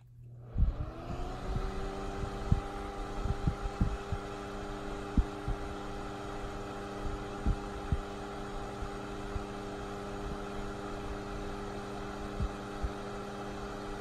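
Duracraft Turbo Fan switched on: its motor hum rises in pitch as the blades spin up over about a second, then runs steady. Irregular low thumps of its airflow hitting the microphone sound through it, most often in the first few seconds.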